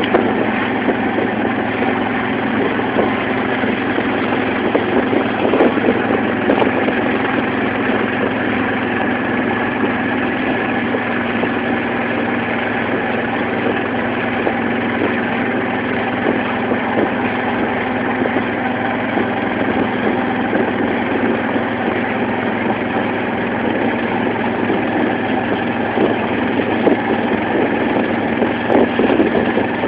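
Engine of a wooden motorized banka running steadily at cruising speed, a constant drone, with water rushing and splashing along the hull as the boat moves.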